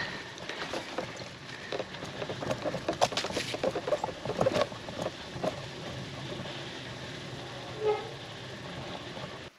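Giant Toughroad SLR 1 touring bike loaded with panniers rolling over a rough unpaved trail: steady tyre and wind noise with scattered rattles and knocks.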